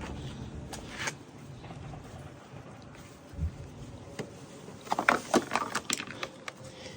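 Sharp clicks and rattles of parts on a Lawn Boy push mower being handled: a couple of light clicks about a second in, a low thump midway, then a quick run of clicks and rattles near the end.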